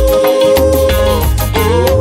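Reggae song's instrumental break: bass and drums under a long held lead note, with a new melody line coming in near the end.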